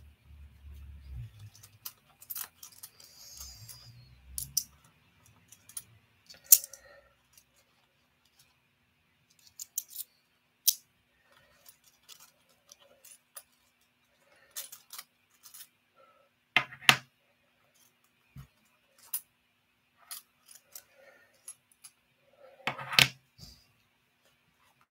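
Irregular clicking and tapping from typing and handling things at a desk, with a low rumbling handling noise in the first few seconds and two louder knocks in the second half.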